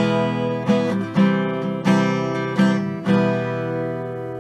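Intro music on acoustic guitar: a run of strummed chords, the last one, about three seconds in, left to ring and slowly fade.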